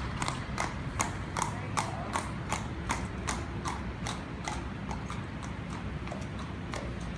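A horse's hooves striking pavement at a trot in an even clip-clop of about two and a half beats a second, fading over the second half as the horse moves away.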